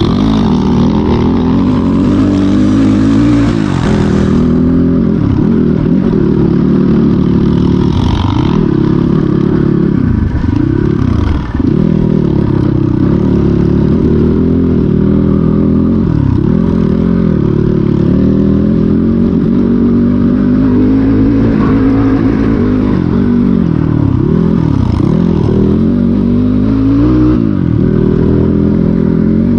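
Off-road dirt bike engine running hard, its pitch rising and falling over and over as the throttle is opened and closed and the gears change.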